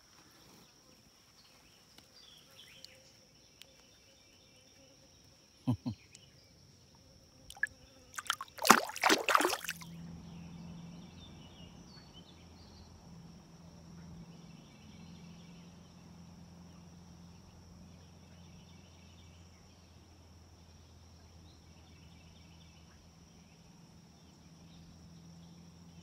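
Insects calling: a steady high-pitched buzz with a short pulsed chirp about every two seconds. About six and seven and a half seconds in come two sharp knocks, then a loud burst of splashy noise lasting about a second and a half, after which a low steady hum sets in.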